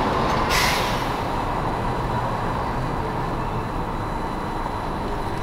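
Street traffic and engine noise heard from inside a car stopped at a crosswalk, a steady hum and rush of passing vehicles, with a brief hiss about half a second in.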